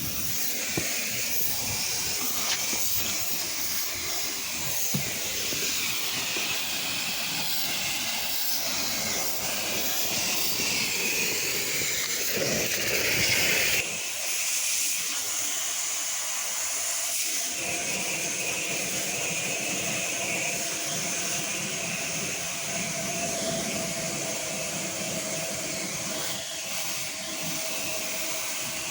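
Pressure washer spraying a high-pressure jet of water onto deck and paving, a steady hiss throughout. The sound shifts abruptly about halfway through, and a steady hum sits under it in the second half.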